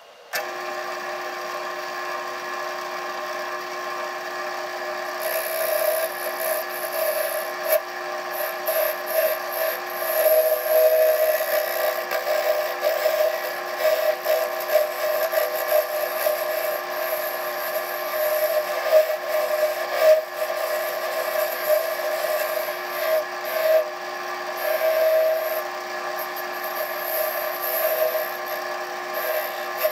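Wood lathe running with a steady hum while abrasive is held against the spinning spalted cherry goblet blank: a rubbing, rasping noise that swells and fades from about five seconds in.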